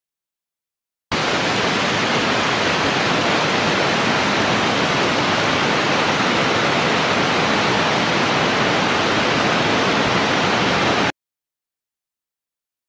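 Steady rushing-water sound effect, as of flow surging through a pipeline, accompanying backpressure after a pump stops. It starts abruptly about a second in, holds even, and cuts off abruptly about ten seconds later.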